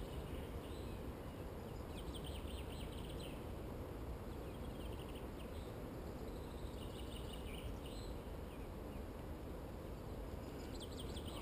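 Small songbirds twittering in short rapid phrases every few seconds over a steady low outdoor rumble.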